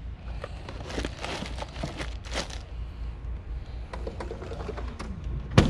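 Handling noise: soft rustling and scattered light clicks from a hand-held camera and hands working around a motorcycle's open tour pack, with one sharp knock near the end.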